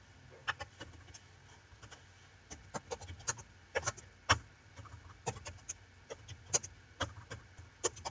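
Computer keyboard keys clicking as code is typed, in irregular runs of a few keystrokes a second.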